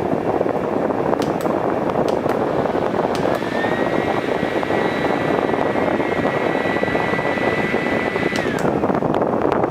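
Pixcool handheld fan running, its airflow a loud, steady rushing noise. A thin motor whine rises a little over three seconds in, holds, and slides down again about a second before the end.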